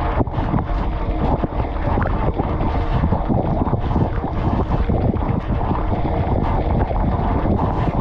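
Inside a Bosch dishwasher during the wash cycle: water jets from the spray arms splash and patter hard against the camera and the racks, a dense, steady spraying with a faint hum underneath.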